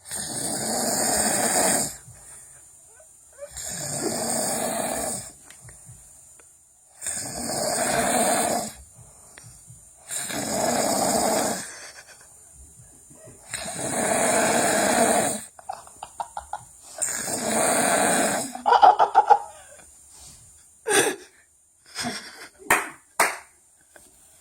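Loud, rhythmic snoring: six long snores, each about a second and a half, coming roughly every three and a half seconds. About nineteen seconds in they give way to a run of short, sharp bursts.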